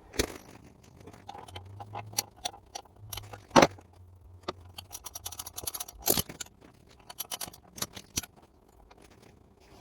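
Irregular metallic clicks and clinks of an 11 mm wrench working the grease zerk loose on a Volvo ECR88 excavator's track tensioner, removing it to let the grease out and slacken the track. A few clicks stand out louder, near the start, in the middle and about two-thirds through.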